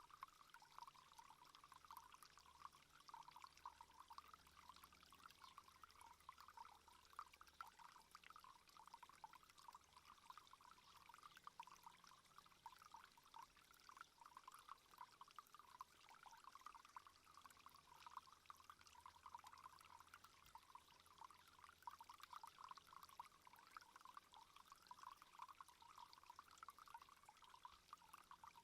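Faint, steady trickle of water, with a fast, irregular bubbling flutter.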